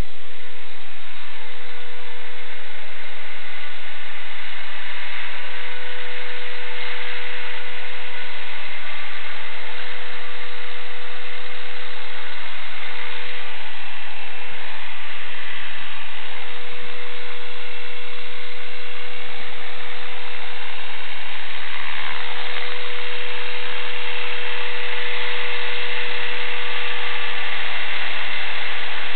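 Small electric motor of an EXI-450 RC helicopter running steadily, a continuous high whine over a steady hum.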